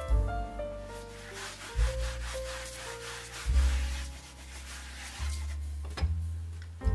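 A hand rubbing flour over a sheet of puff pastry on parchment paper, a dry brushing, strongest between about one and three seconds in. Background music with slow piano-like notes and a recurring bass pulse plays under it, and a short click comes near the end.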